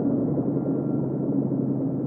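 Low, steady droning sound effect with several held low tones, slowly fading.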